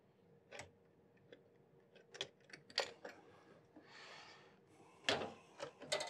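Scattered light clicks and taps of hard plastic and metal as an all-in-one liquid cooler's pump block and tubing are handled and fitted onto the CPU mounting inside a PC case, with a brief rustling scrape about four seconds in.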